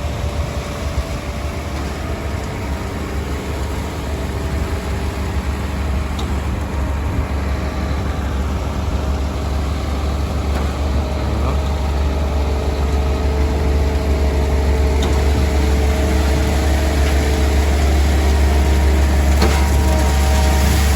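Heavy diesel engine of a truck-mounted concrete pump running steadily as pumping starts, a deep hum that slowly grows louder, with a few faint knocks.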